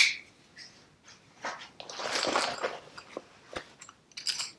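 Handling noises of a waxed canvas tool bag and its thread: a soft rustle about two seconds in, then a few small clicks and light scratches.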